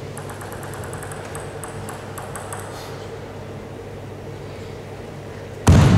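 Celluloid table tennis ball bounced with quick light clicks as the player readies his serve, over the steady hum of a large sports hall. Near the end a sudden loud burst of noise breaks in.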